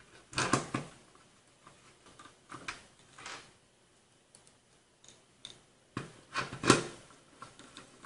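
Scattered clicks and light knocks of a screwdriver and small parts being handled on a computer motherboard while a part is screwed down, the loudest knock about two-thirds of the way through.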